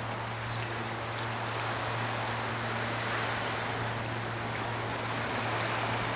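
Steady rush of water along a rocky cove shore, with a constant low machine hum underneath.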